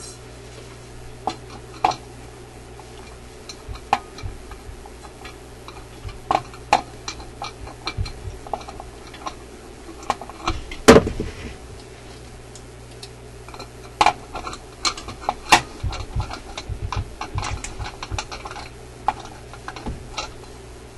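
Irregular clicks, clinks and knocks of an Electrohome 652 record player's turntable parts being handled as the platter is lowered back onto its spindle during reassembly, the loudest knock about eleven seconds in.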